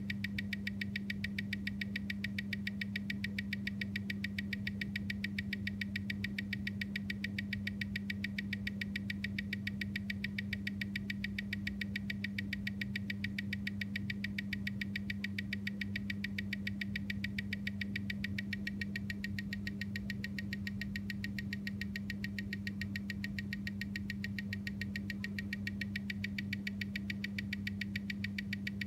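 Omega calibre 8500 co-axial watch movement with a silicon balance spring, ticking at 25,200 beats per hour (seven even ticks a second), picked up and amplified by a timegrapher, over a steady electrical hum. The even beat matches the timegrapher's reading of about +1 s/day, around 340° amplitude and 0.3 ms beat error: a well-regulated, healthy movement.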